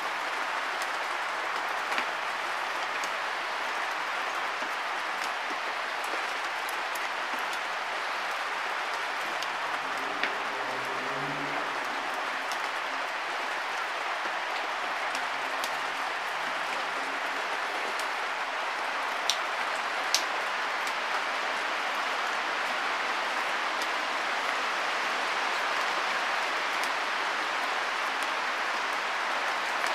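Steady hiss like falling rain, with a few light clicks and scrapes from a knife shaving curls off a sycamore stick.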